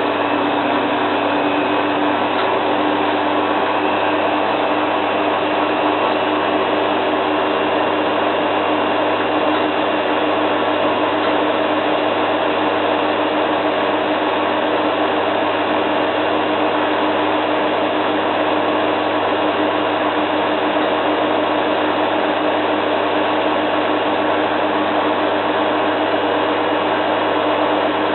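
Zanussi FLA1002W front-loading washing machine spinning a duvet load at high speed: a steady whirring drone with a constant hum through it.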